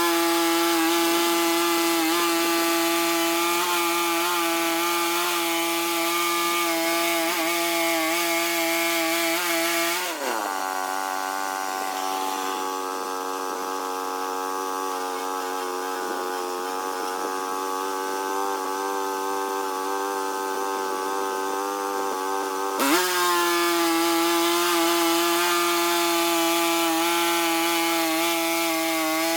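Small sawmill running: the engine holds a steady pitch while the saw cuts through a log with a loud hiss. About ten seconds in, the engine pitch dips and the cutting noise drops away. Near the end, the engine winds back up and the cutting starts again.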